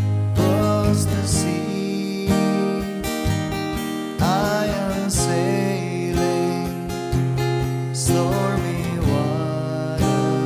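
Acoustic guitar played with a capo, strummed chords in a steady rhythmic strumming pattern.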